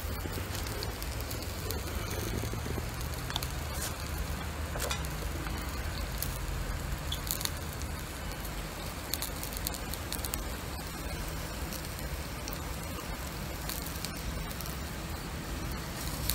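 Chicken-and-leek yakitori skewers sizzling on a small charcoal grill, with many small crackles and pops scattered through a steady hiss.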